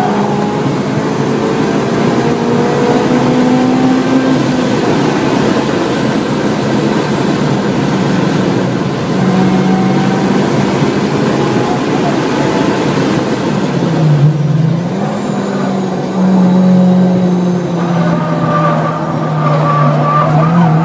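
2007 Honda Civic Si's supercharged 2.0-litre four-cylinder engine running hard at high revs, heard from inside the cabin over steady road and wind noise. The engine note holds steady, then drops briefly and climbs back about two-thirds of the way through.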